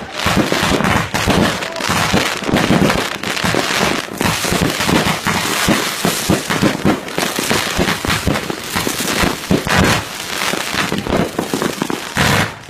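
Fireworks going off in a dense, continuous barrage of rapid bangs, many overlapping with no pause.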